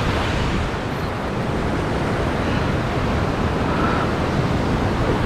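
Ocean surf washing against the rocky sea-cliff shoreline, a steady rush of waves with wind buffeting the microphone.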